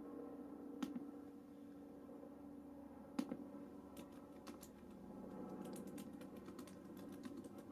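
Faint scattered clicks and taps over a steady low hum, thickening into a quick run of light clicks near the end.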